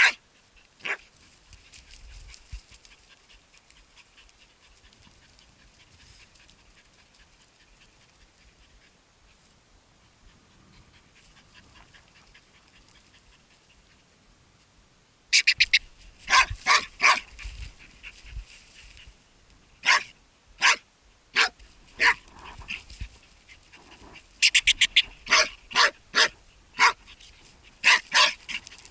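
Hunting laika barking and yelping at a burrow where a marten has gone to ground, in quick high-pitched runs of short barks. The barking starts about halfway through, after a faint quiet stretch.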